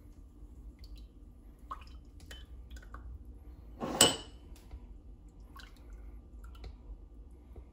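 Yellow liquid mixture poured from a glass mixing bowl into small ceramic ramekins, with light clinks of dishware and one sharp, ringing clink about four seconds in.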